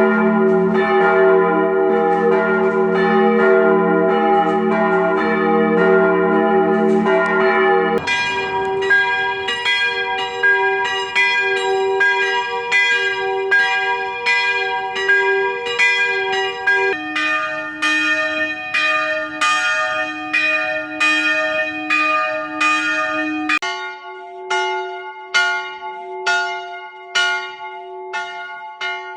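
Swinging church bells ringing, in a run of separate recordings joined by abrupt cuts about 8, 17 and 24 seconds in. First several bells sound together, then one bell at a time, each with a steady hum under clapper strikes about once a second. In the last recording the strikes stand out singly and grow fainter as the bell slows.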